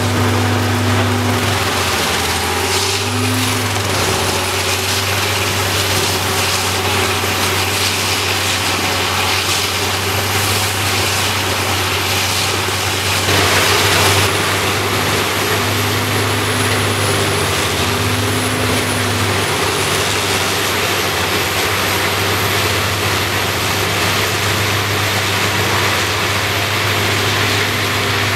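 Peterson 4310B drum chipper running under load while chipping logs: a steady, loud engine drone under a continuous rush of chips. The sound changes about 13 seconds in and then holds steady.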